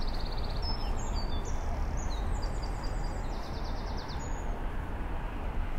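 A small songbird singing quick high trills and runs of rapidly repeated notes, stopping about four seconds in, over a steady low rumble.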